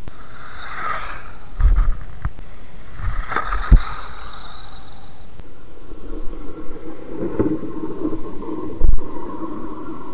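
WLtoys 12428 RC buggy's stock electric motor and geartrain whining as it drives away and back, the pitch rising and falling with throttle. A few loud low thumps break in.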